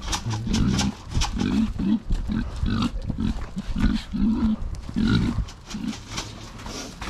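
Kunekune boar giving short low grunts, about two a second, as it trots along, thinning out near the end, with footsteps on dry ground.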